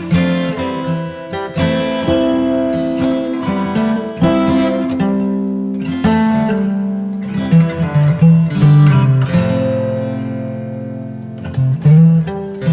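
Background music on acoustic guitar, with plucked notes and strummed chords.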